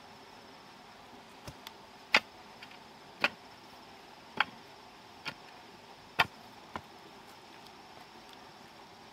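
A hand digging tool striking into loose red soil: a series of sharp strikes about a second apart.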